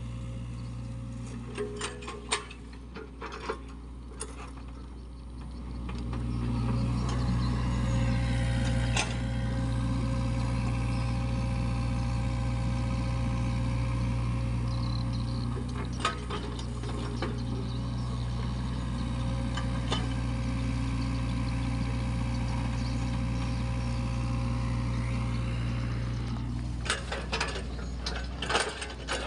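Sany SY55C mini excavator's diesel engine running steadily, getting louder about six seconds in as it digs wet mud. Occasional clanks and knocks from the bucket and linkage, with a cluster near the end.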